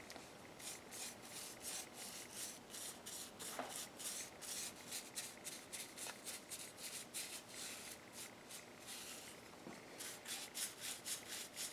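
A brush working varnish into a carved and painted wooden figure, with repeated scratchy strokes about two a second. After a short pause near the end, the strokes come quicker.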